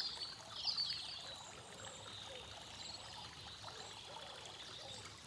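Steady trickle of running water from a tiered stone garden fountain, with a few high chirps in about the first second.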